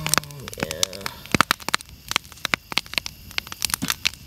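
Campfire crackling, with many sharp, irregular pops and snaps.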